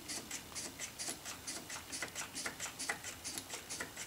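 King Nutronics Model 3750 hand pump worked in pneumatic mode to build up test pressure: a quick, even rhythm of about four short strokes a second.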